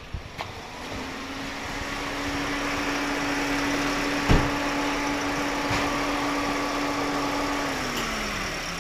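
Toyota Vios 1NR-FE four-cylinder engine running rough with a misfire on cylinder 3, the fault behind its P1605 rough-idle code. A steady hum comes up about a second in and drops in pitch near the end, with one sharp click about four seconds in.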